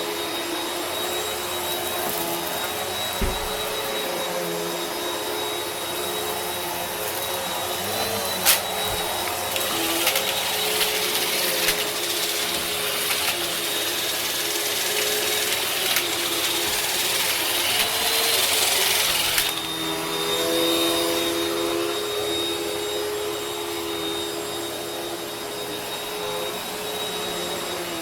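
Vacuum cleaner running steadily, a motor whine over the rush of air. About eight seconds in there is a sharp click. From about ten seconds in to almost twenty, the rushing hiss grows louder, then settles back.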